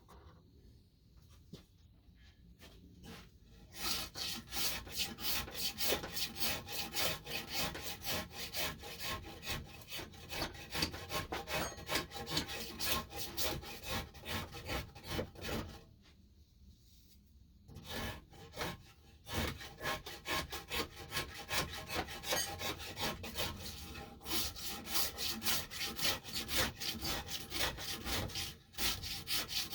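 A hand tool worked rapidly back and forth over the wooden knob of an axe handle, shaping it in quick repeated strokes. The strokes start about four seconds in, stop for a couple of seconds around the middle, then carry on.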